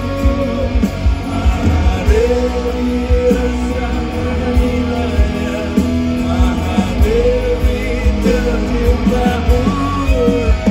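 Live rock band playing a song: singing over acoustic and electric guitars, bass and a steady drum beat.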